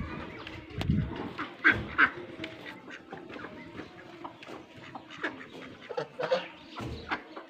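Domestic ducks quacking in short, scattered calls, with a few dull knocks, the heaviest about a second in.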